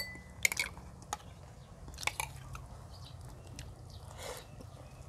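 Two people eating at a table: chewing and mouth sounds, with a few sharp clicks of spoon and chopsticks against dishes, the clearest about half a second in and around two seconds.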